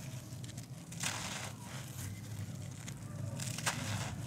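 Hands crushing and crumbling a dry, packed lump of dusty earth, giving crunchy, gritty crumbling in two main spells: about a second in, and again near the end with a sharp crack. A steady low hum runs underneath.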